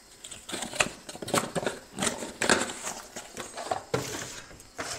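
Irregular light clicks, taps and knocks of cardboard boxes of drinking glasses being handled and put back.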